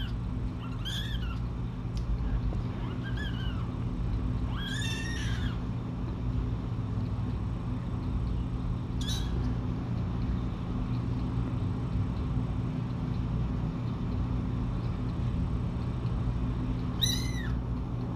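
Young kittens mewing: about five short, high-pitched mews spread out with long gaps, each rising and then falling in pitch.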